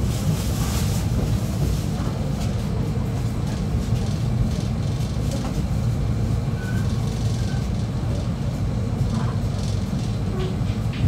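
Steady low rumble heard from inside a passenger train coach as it rolls along, with a few faint clicks.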